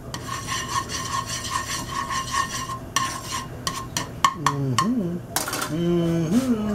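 Spoon scraping and stirring in a bowl of pancake batter, a rhythmic rubbing with a pulsing ringing note, then a few clicks of utensil against bowl. Near the end a man hums two short gliding notes.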